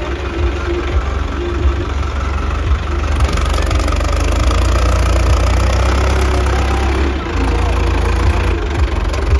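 Farmtrac 6055 diesel tractor engine working hard as it pulls a heavily loaded soil trolley. The engine note grows louder about three seconds in and eases briefly a little after seven seconds.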